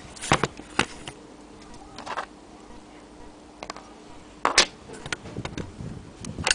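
Irregular clicks and knocks from an old metal clock movement and its round metal case being handled and turned over by hand, the loudest knock about four and a half seconds in. A faint steady hum runs underneath.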